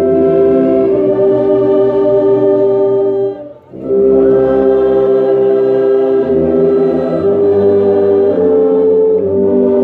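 Slow hymn sung by a choir with orchestra, in long held chords, a French horn playing close by. The music breaks off briefly between phrases about three and a half seconds in.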